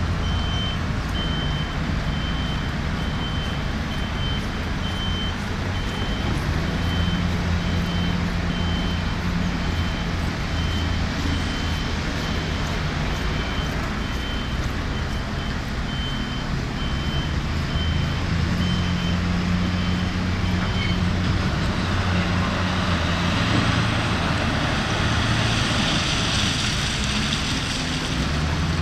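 Heavy diesel machinery running steadily, with a reversing alarm beeping about twice a second; the beeping stops about three-quarters of the way through. Near the end a hiss swells up over the engine.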